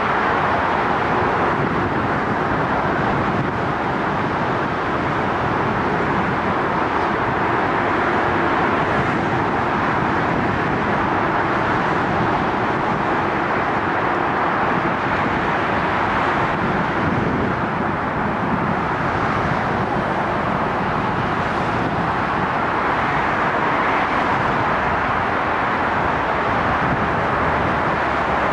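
Steady wash of distant city traffic noise, even throughout with no single vehicle standing out.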